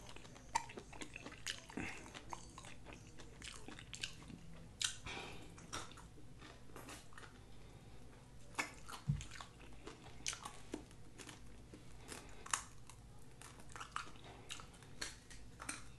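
Close eating sounds of crispy, hard-fried chicken wings being bitten and chewed: irregular crunches and crackles with wet chewing in between.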